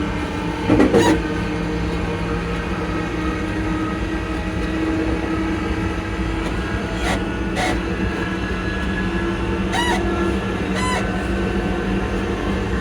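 ScotRail Class 334 electric train's traction motors whining steadily as the train runs, over rumbling running noise. A loud clatter about a second in, and sharp wheel clicks over rail joints twice around halfway and twice near the end.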